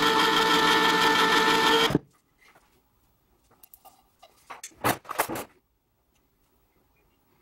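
Small electric motor, most likely an electric can opener, whirring steadily for about two seconds and stopping abruptly. A few seconds later come short clinks and scrapes of soup being knocked out of the can and a utensil against the glass dish.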